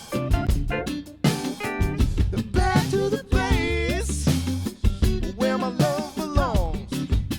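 A mixed song playing: drum kit and bass under a sung vocal line, the voice sliding in pitch around the middle and again near the end.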